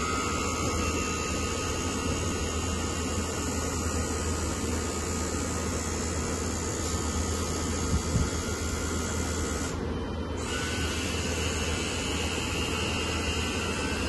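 Hydraulic pump of a 1/14 scale RC dump truck running as the tipper bed is raised and lowered: a steady electric whine over a steady low hum, breaking off briefly about ten seconds in and coming back at a higher pitch.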